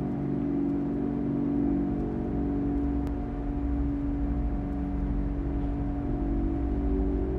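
Steady low drone of a dark ambient horror-film underscore: a deep rumble with a few held tones and no beat.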